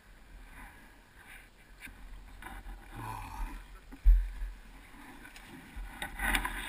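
A rider in enduro gear topples onto the forest floor, landing with one heavy thud about four seconds in, followed by scuffing and rustling. A low rumble of wind on the microphone is heard, and it grows rougher and louder near the end.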